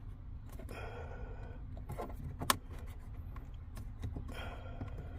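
Small clicks and rattles of a plastic retaining pin and trim being worked loose by hand, with one sharp click about halfway through, over a low steady hum.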